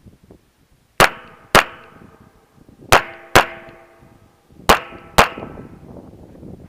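Springfield XD(M) 5.25 pistol fired six times in three quick pairs, about half a second between the shots of a pair. Each shot is followed by a metallic ring that fades over a second or so, as of steel targets being hit.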